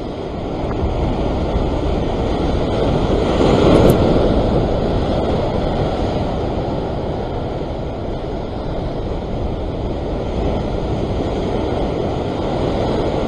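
Ocean surf breaking and washing below the rocks, mixed with wind on the microphone; a wave surges loudest about four seconds in.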